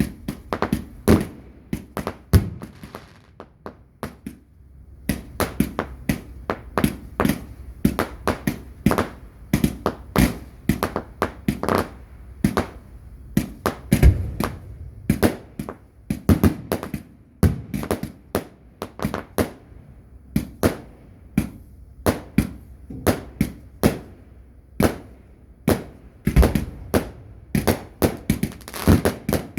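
Fireworks going off in quick succession: a stream of sharp bangs and dull thuds, a few a second, with a short lull a few seconds in.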